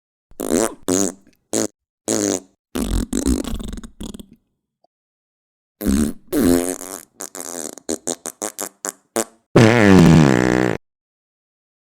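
A run of fart sounds played one after another with dead silence between them, each with a wavering pitch. A few short ones and a longer one come first, then a quick series of short pops, and the longest and loudest near the end, dropping in pitch.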